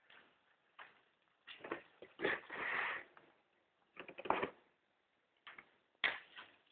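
Faint handling noises from lifting a vinyl floor plank to get at the paper towel under it: scattered short rustles and light knocks, with a longer rustle about two and a half seconds in.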